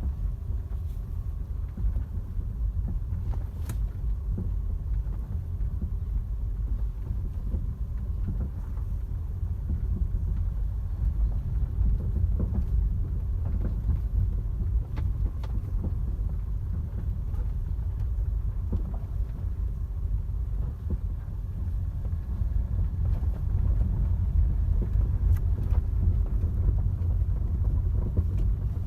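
Toyota Corolla with a steady low rumble and a few faint knocks: the steering noise that is still there after the steering rack and stabilizer links were replaced.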